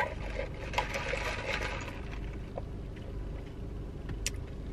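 Iced coffee being sipped through a plastic straw, a soft wet sucking sound mostly in the first two seconds, with a couple of faint clicks near the end, over a low steady hum.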